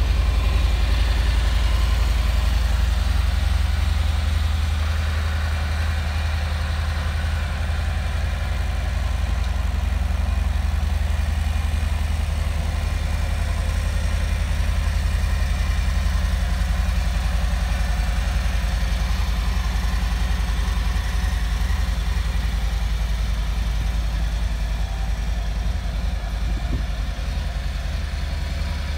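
Harley-Davidson Fat Bob 114's Milwaukee-Eight 114 V-twin idling steadily through its stock exhaust, just after being started. It is a little louder for the first few seconds, then settles.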